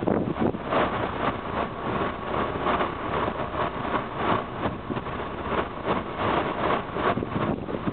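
Boat engine running, with wind buffeting the microphone in irregular gusts.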